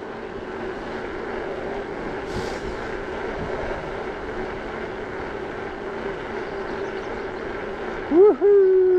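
Bicycle rolling fast on asphalt: a steady rush of wind and tyre noise with a constant hum underneath. About eight seconds in, a person lets out a loud whoop that rises briefly, then falls away in one long glide.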